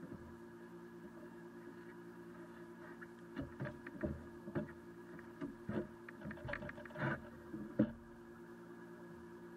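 Boat's motor humming steadily, with a cluster of irregular knocks and rattles from people moving and handling gear on the boat's deck from about three seconds in to near the end, the last knock the sharpest.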